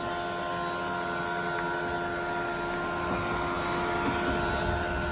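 Leaf blower running steadily, a high whine over the rush of air, blowing ash off a car's paintwork.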